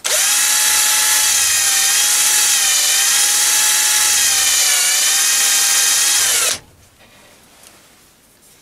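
Cordless battery drill driving a lathe tool-post drill, its motor whining steadily as it drills a hole in an aluminium die holder. The pitch sags slightly a couple of times under load, and the whine stops suddenly about six and a half seconds in.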